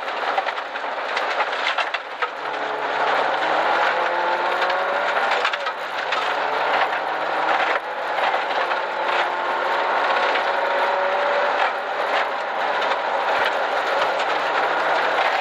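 Rally car heard from inside the cabin, its engine pulling hard, the pitch climbing steadily through each gear and dropping back at two gear changes. Constant tyre and gravel noise from the loose forest track runs under it, with scattered sharp clicks of stones.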